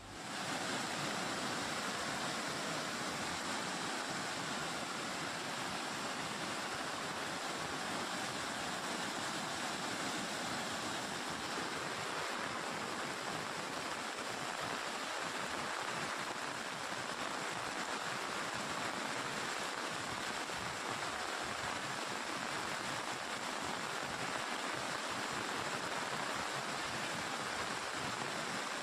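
A flooded, muddy river rushing past: a steady, unbroken noise of fast-flowing floodwater.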